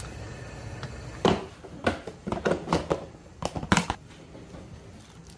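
A quick run of sharp clicks and knocks from kitchenware being handled, about eight of them in two and a half seconds.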